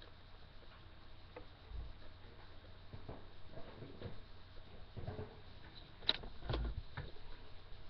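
Faint handling noises: scattered soft knocks and clicks from objects being moved near the microphone, with a couple of sharper clicks about six seconds in.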